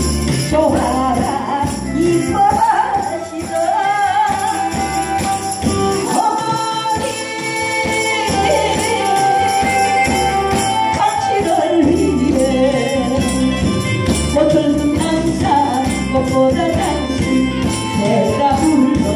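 A woman singing a Korean song into a microphone over an amplified backing track, with the accompaniment running continuously under the voice.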